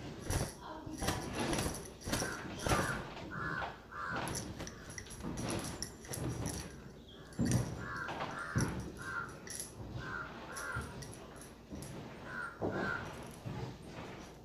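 A towel slapping and swishing against long wet hair as it is beaten and flipped dry, in a quick, irregular run of sharp swats.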